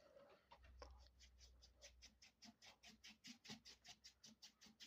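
Faint, scratchy strokes of a paintbrush scrubbing oil paint onto canvas, quick and even at about five strokes a second.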